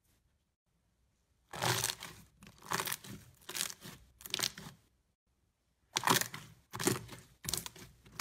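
Clear slime squelching and crackling as hands press and stretch it, in two runs of about four bursts each with a short pause between.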